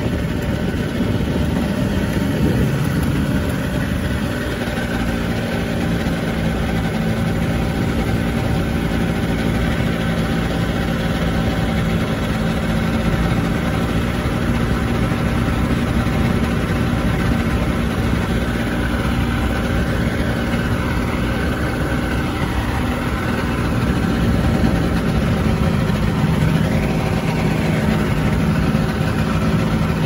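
Weight-shift microlight trike's engine idling steadily on the ground, a little louder near the end.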